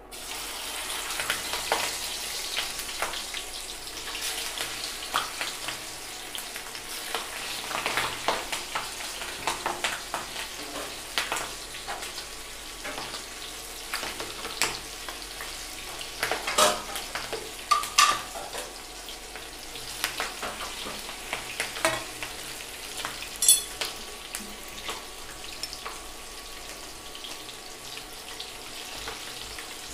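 Cut chilli bajji pieces sizzling in hot oil in a kadai during their second frying, a steady crackling hiss. Throughout, a metal spoon stirring them scrapes and clicks against the pan, with the sharpest clicks a little past halfway.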